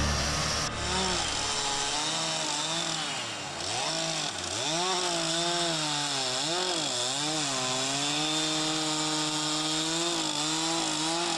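Chainsaw cutting into a wooden sculpture, its engine pitch repeatedly rising and falling as the throttle is worked through the cuts, dropping sharply twice about a third of the way in.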